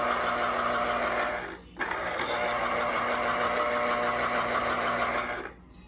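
Electric citrus juicer's motor running steadily as an orange half is pressed down onto its spinning reamer cone. It breaks off briefly about a second and a half in, then runs on and cuts off near the end.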